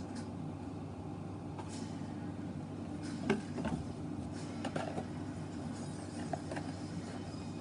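Steady low background hum with a few light clicks and taps, the sharpest about three seconds in.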